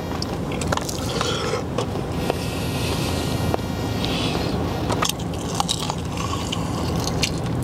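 Close-miked chewing of crispy KFC fried chicken: crunching in several bouts with sharp clicking bites. A steady low hum runs underneath.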